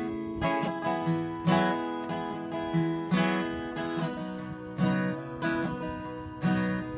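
Acoustic guitar strumming chords, an instrumental passage of a song with no singing, recorded on an iPhone.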